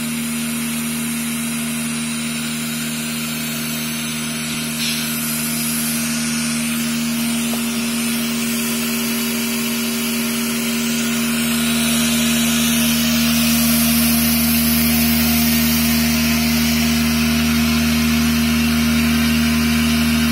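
Vibratory bowl feeder of an automatic nylon cable tie machine running: a steady electric hum with a hiss above it, getting a little louder about eleven seconds in as a deeper hum comes up.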